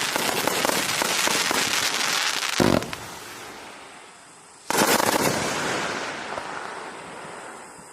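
180-shot 500-gram compound fireworks cake firing: dense rapid shots and crackle, a loud low report about two and a half seconds in, then a fade. A second sudden loud burst near five seconds in dies away in crackling.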